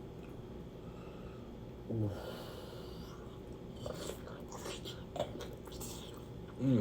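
A person eating: soft mouth and chewing noises with a short nasal "mm" hum about two seconds in and another near the end, a brief hiss between them.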